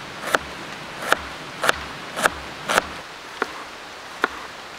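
Large knife chopping a red onion on a plastic cutting board: sharp knocks of the blade hitting the board, about two a second, then a few slower strokes near the end.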